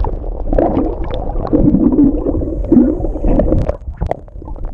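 Muffled underwater sound of seawater moving around a camera dipped in the shallows: low rushing and gurgling with scattered small clicks.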